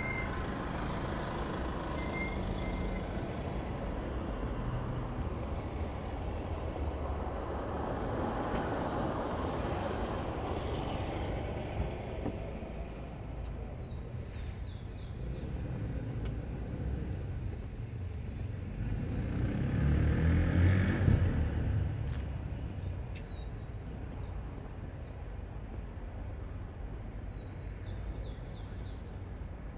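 City street traffic heard on foot: a steady wash of passing cars, with a heavier vehicle's deep engine rumble swelling and fading about two-thirds of the way through. A few brief high chirps come near the middle and near the end.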